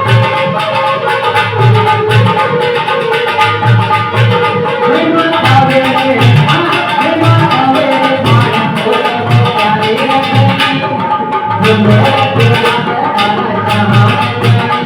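Loud music with a steady drum beat under a melodic line.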